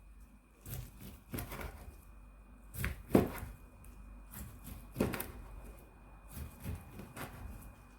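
A knife slicing through a kimbap roll on a cutting board: several irregular knocks of the blade meeting the board, the loudest a little after three seconds and at five seconds.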